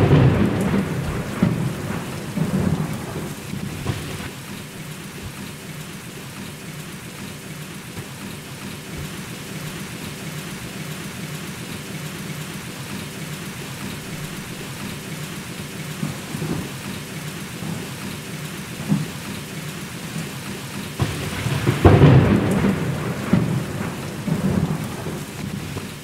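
Thunderstorm sound effect for a stage play: steady heavy rain with rolling thunder rumbling at the start and again near the end.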